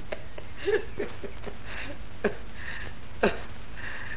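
A few short vocal sounds from a person, each dropping sharply in pitch, with breathy sounds between them, over the steady hiss and hum of an old film soundtrack.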